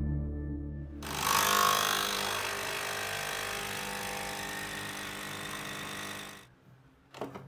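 Nespresso capsule coffee machine brewing an espresso into a glass cup, its pump buzzing steadily with a hiss of liquid, then cutting off abruptly about six seconds in.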